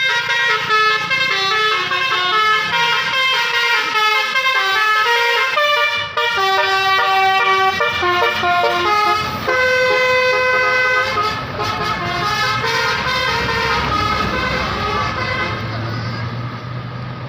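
Telolet basuri musical horn playing a quick melody of short stepping notes. It cuts in suddenly and runs for about eleven seconds, then gives way to engine and traffic noise.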